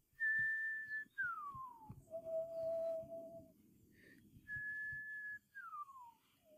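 A person whistling a short phrase twice: a held high note slides down into a held low note.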